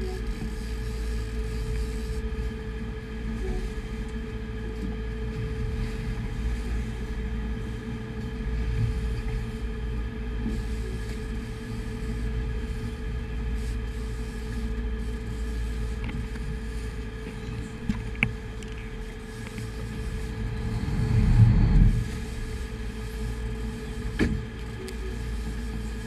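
Sportfishing boat's inboard engines running with a steady low drone and hum while the boat moves through big seas. About 21 seconds in there is a louder low rush, with a few short knocks around it.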